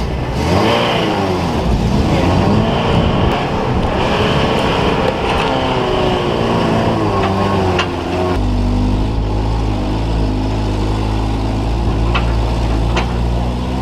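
Off-road 4x4 rig's engine revving up and down in swells, then settling into a steady low drone about eight seconds in, with a few short sharp knocks near the end.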